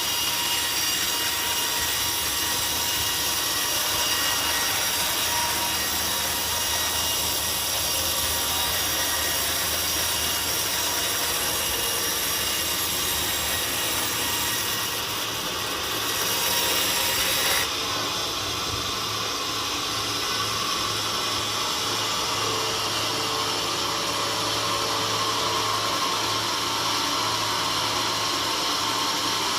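Sawmill saw running steadily through a teak log, with the sound of the cut changing abruptly about two-thirds of the way through.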